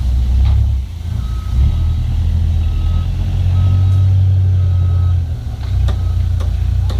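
A heavy machine's reversing alarm beeps about five times at one high pitch, over the loud, low running of its engine.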